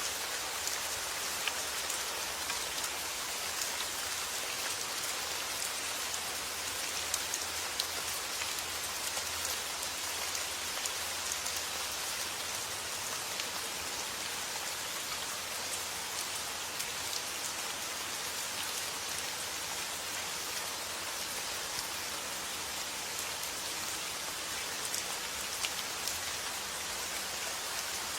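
Steady rainfall, a dense even hiss with many individual drops ticking sharply on a hard surface.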